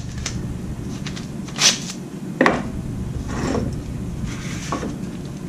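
Hands handling items on a workbench: rubbing and rustling with a few light clicks and knocks, over a steady low hum.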